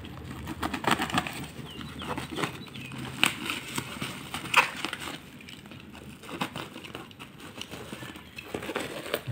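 Black plastic packaging crinkling and crackling as hands grip and pull at a wrapped parcel, in irregular crackles that are densest in the first half.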